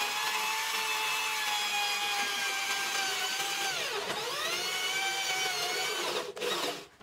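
Drill press running with a gold twist bit boring into a metal plate: a steady whine whose pitch sags briefly about four seconds in and then recovers. A short scraping burst comes just before it cuts off near the end.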